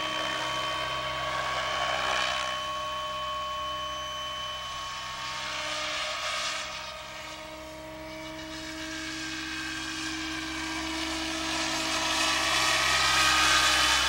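Protos Max V2 radio-controlled electric helicopter flying: its drive gives off a steady whine, and the rotor blades whoosh in swells as it manoeuvres. The sound grows loudest near the end as the helicopter comes close.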